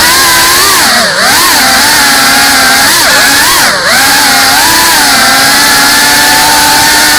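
Loud whine of the GEPRC CineLog 35 FPV cinewhoop drone's motors and propellers in flight. The pitch rises and falls with the throttle for the first few seconds, then holds steadier.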